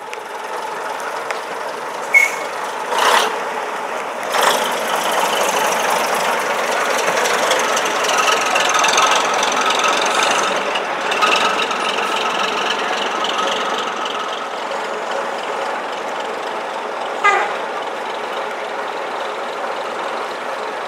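Diesel bus engine running as a coach manoeuvres close by, growing louder through the middle and easing after about 14 seconds. A few short sharp sounds stand out, three in the first five seconds and one about 17 seconds in.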